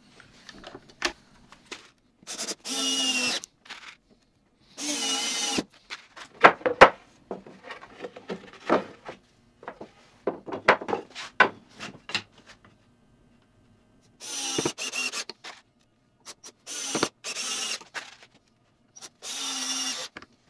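Cordless drill-driver driving stainless steel screws into the wooden chair frame, in five short runs of about a second each. Between the runs come clicks and knocks of the wood pieces being handled.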